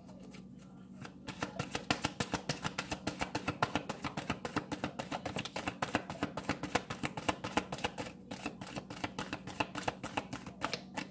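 A deck of cards shuffled by hand: a rapid, even run of soft slapping clicks as the cards are riffled and dropped between the hands, starting about a second in and thinning out near the end.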